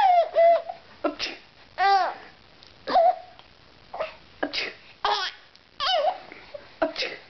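Baby laughing and squealing in short high-pitched bursts, about one a second, with short pauses between them.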